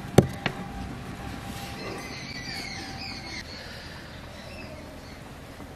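A sharp knock, then a lighter one, as a heavy stone grinding slab (sil-pata) is handled and lifted. Afterwards birds chirp faintly in the background.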